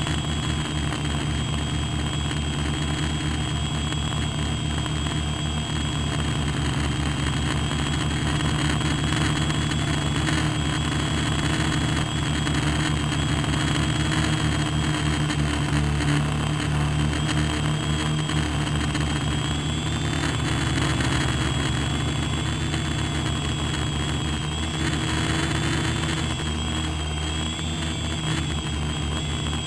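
Radio-controlled aircraft's motors and propellers heard from its own on-board camera, running steadily while it hovers low, a loud drone with a high whine that rises slightly now and then.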